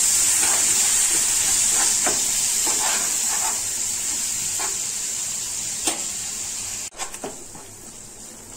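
Onion-tomato masala sizzling in a frying pan while a slotted spatula stirs and scrapes through it, with soft scraping strokes every second or so. The sizzle drops off sharply about seven seconds in.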